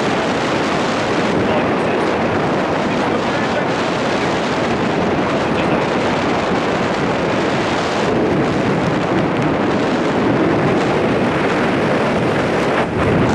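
Loud, steady wind rushing over the camera's microphone during a tandem parachute descent under canopy.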